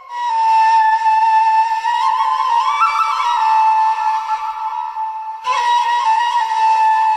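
Flute-like wind melody playing long held notes, with a short ornamented run about three seconds in and a brief break a little after five seconds.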